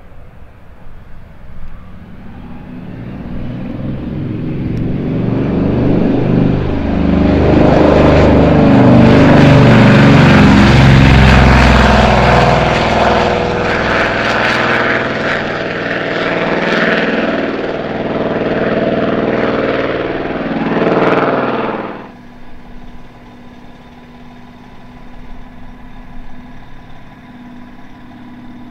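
De Havilland Canada DHC-4 Caribou's twin Pratt & Whitney R-2000 radial piston engines at full power on a touch-and-go, growing louder to a peak and dropping in pitch as the aircraft passes and climbs away. About 22 seconds in the sound cuts off abruptly to the quieter, steady hum of the engines on a distant approach.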